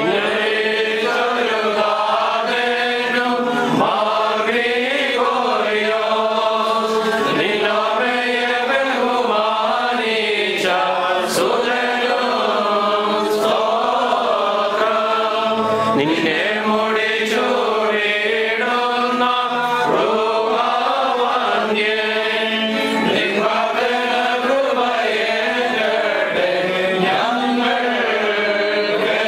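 A group of clergy chanting a Malankara Orthodox liturgical hymn together, several voices sustaining and bending long sung notes without pause.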